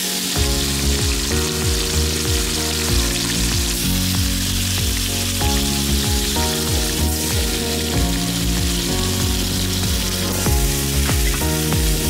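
Green-chilli-marinated chicken pieces sizzling and frying in hot oil in an aluminium wok, the sizzle starting as the chicken goes into the oil. Background music plays over it.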